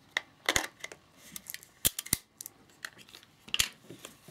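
Sharp metallic clicks and light scraping as a 50mm f/1.4 lens is fitted onto a Nikon F2's bayonet mount and twisted into place. There are four distinct clicks, two of them close together in the middle.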